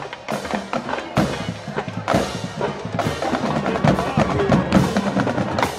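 Background music with a steady drum beat, a heavy hit landing a little under once a second.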